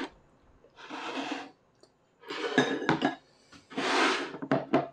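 Chopsticks tapping and clinking against ceramic rice bowls and dishes while eating, with a cluster of sharp clicks in the second half. The clicks come between several longer, soft, hissy sounds from the meal.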